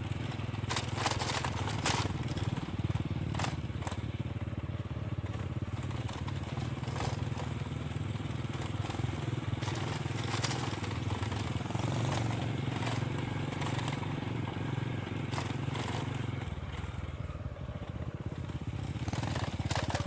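Small motorcycle engine running at low speed, with scattered clicks and knocks as the tyres roll over a rough gravel lane. The engine note changes near the end.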